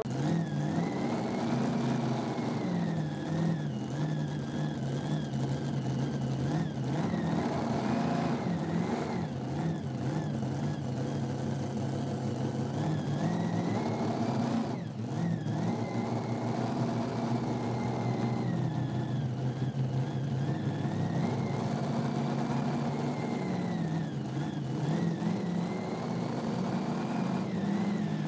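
Diesel pulling truck's engine running at the line, its pitch rising and falling slowly every few seconds as it is revved lightly.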